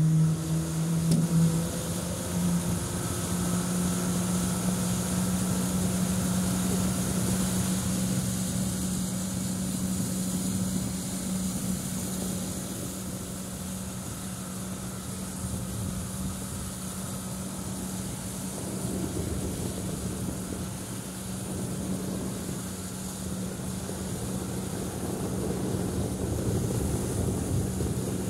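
Pontoon boat's outboard motor running under way. It comes up in pitch over the first couple of seconds, then holds a steady drone, with wind and water hiss beneath it.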